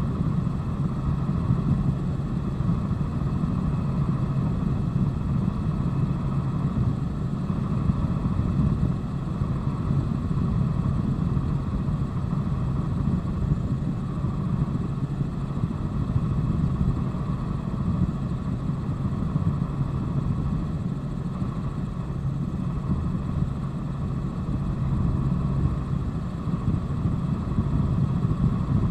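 Helicopter in flight heard from inside the cabin: the engine and rotor make a loud, steady drone with a constant low hum.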